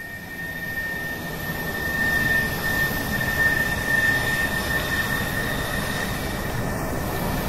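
Steady engine-like rush with a thin high whine over it, swelling over the first two seconds and then holding steady.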